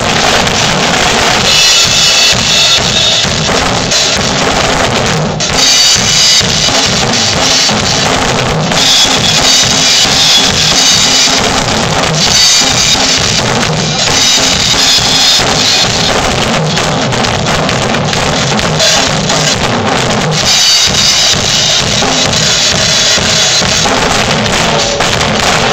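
Two drum kits, a black Ludwig kit and a red Pearl kit, played loudly together: continuous beats on bass drum, snare and toms, with several stretches of ringing cymbals lasting a few seconds each.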